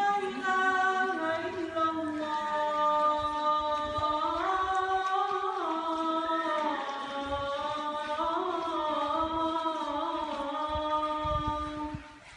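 A man's voice calling the adhan, the Muslim call to prayer, unaccompanied. He sings long held, ornamented phrases that slide up and down in pitch. The voice breaks off abruptly near the end.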